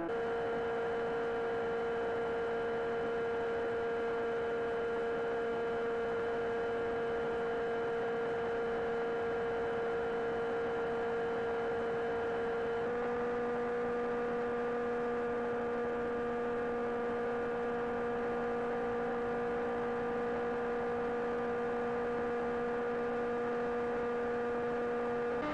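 Steady whine of a small FPV flying wing's brushless motor and pusher propeller at constant cruise throttle, heard from on board over wind noise. The pitch shifts slightly about halfway through.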